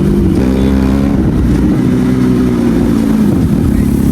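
Benelli motorcycle engine running on its stock exhaust while riding. Its note shifts in pitch about a second in and again near three seconds, as with throttle and gear changes.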